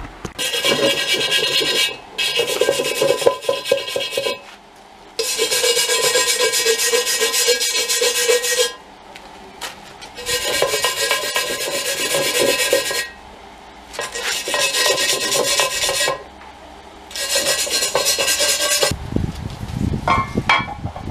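A stiff hand brush scrubbing rust off a cast-iron Dutch oven lid in six bouts of hard back-and-forth scraping, with short pauses between them. Near the end there is some lower handling noise as the iron is moved.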